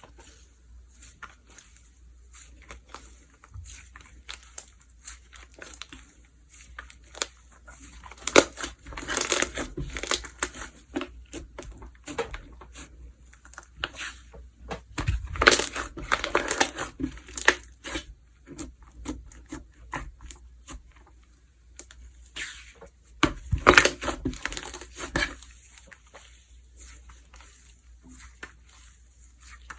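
Slime being squeezed and worked by hand, with steady clicking and crackling and three louder, denser spells of crackling, about a third, half and three-quarters of the way through.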